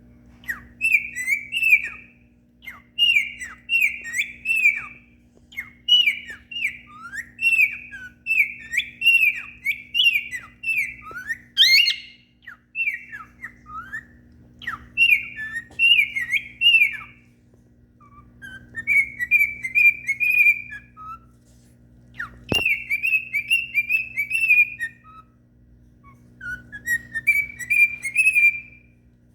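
Cockatiel whistling its song: phrases of quick, chirpy notes repeated over and over with short pauses between them. A single sharp click sounds about two-thirds of the way through.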